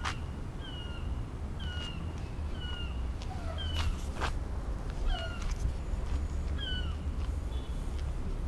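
An animal calling over and over: short, high, falling calls about once a second, with a few sharp clicks among them.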